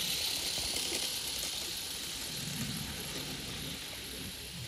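Steam hissing from a small live-steam model locomotive running past with its wagons, fading as it draws away.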